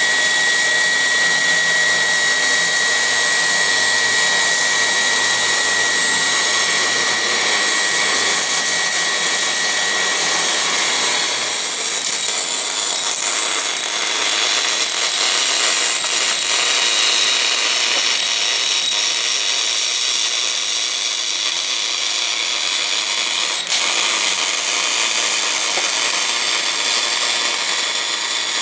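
Portable line-boring and bore-welding machine running steadily with a dense hiss. A high whine sounds for about the first ten seconds, then stops.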